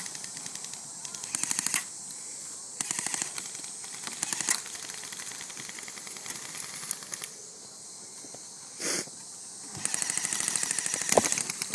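Airsoft guns firing in rapid full-auto bursts, each a fast string of sharp clicks. There are several short bursts in the first half and a longer one near the end.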